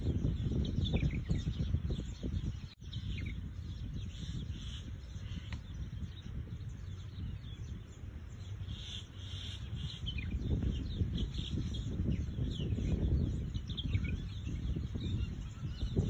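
Small birds chirping in short, high calls, over a loud low rumble. The sound cuts out for an instant about three seconds in.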